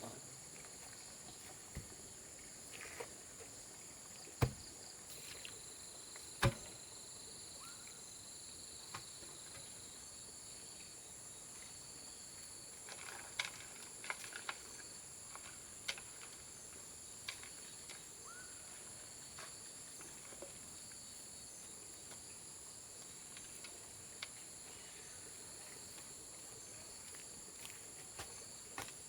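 Steady high-pitched chorus of crickets or cicadas, with scattered sharp clicks and knocks. The two loudest knocks come about four and six and a half seconds in.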